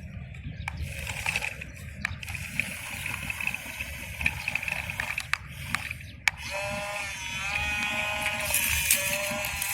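Small electric motors and gearing of a radio-controlled model excavator whirring, with scattered clicks. About six seconds in, a louder motor whine starts and steps up and down in pitch as the machine works.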